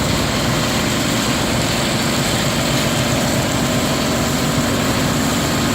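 Concrete recycling machine running steadily: a continuous loud machine noise with a low hum.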